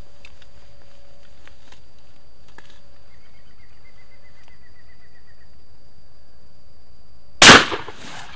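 A single 12-gauge shotgun shot from a Beretta S56E over-under, loud and sudden about seven and a half seconds in, with a short ringing tail. A few faint clicks of handling come before it.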